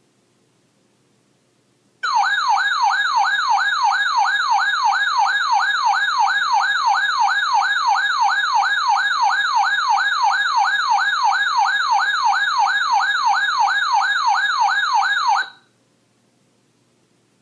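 Weather alert radio alarm sounding for a tornado warning: a loud warbling tone that sweeps up and down about two and a half times a second. It starts abruptly about two seconds in and cuts off sharply near the end.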